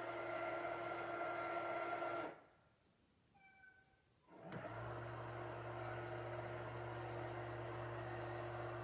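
Litter-Robot 3 Open Air's globe drive motor running with a steady hum and a high whine. It stops about two seconds in and starts again about two seconds later with a deeper, stronger hum, as the unit rotates the globe to correct itself back to its home position.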